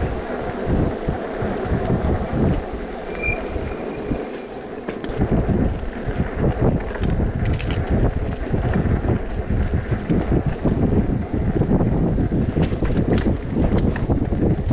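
Wind buffeting the microphone of a moving e-bike in gusts, with scattered light clicks and rattles. A brief high chirp sounds about three seconds in.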